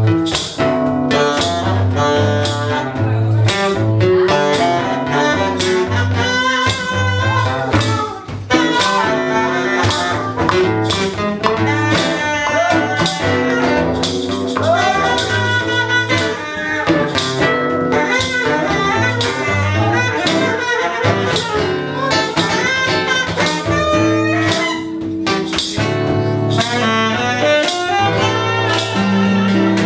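Instrumental music with a walking bass line and a melody, in a jazz or blues style.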